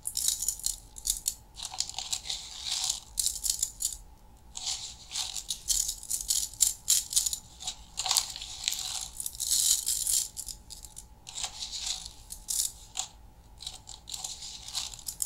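Raw rice grains pouring from a plastic bag into a baking pan and scattered by hand, a dry rattling patter that comes in several bursts with short pauses between pours.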